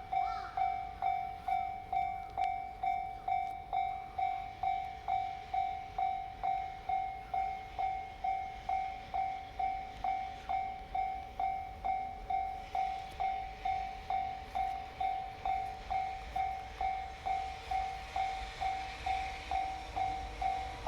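Japanese level-crossing warning bell ringing its steady electronic 'kan-kan' tone, about two strikes a second, signalling a train is coming. In the second half a faint rumble and rail noise of the approaching freight train builds under it.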